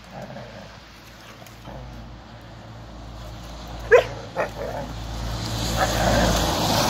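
Two young German Shepherds play-fighting: one gives a single sharp bark about four seconds in, then a shorter one, followed by short yelps over a rising rough rumbling noise near the end.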